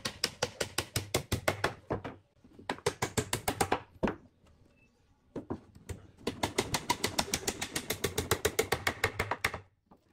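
Hammer tapping rapidly at the corner of a pine board box, about six or seven light strikes a second, in three runs with short pauses; the longest run comes in the second half.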